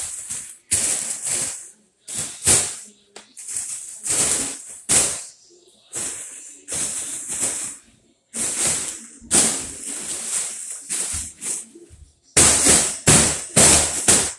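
Gold foil number balloon being punched and swung, crinkling and rustling in about a dozen irregular bursts, each under a second long, with the closest run of hits near the end.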